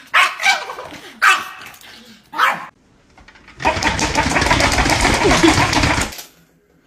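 Small dog barking at a squirrel through a glass door, three sharp barks in the first few seconds. After a short gap comes a loud, steady rushing noise lasting about two and a half seconds.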